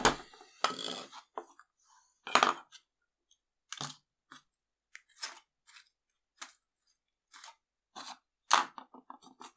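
Plastic screwdriver housing parts and hand tools being picked up, shifted and set down on a wooden workbench: a string of irregular clicks and knocks, the loudest about two and a half seconds in and again near the end.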